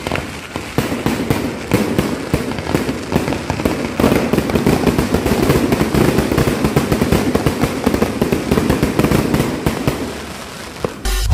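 Dense, rapid popping and crackling of many fireworks and firecrackers going off at once, heaviest in the middle and thinning out near the end.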